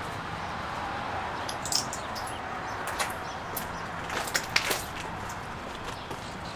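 Light clicks and taps scattered over steady background noise, clustered between about two and five seconds in.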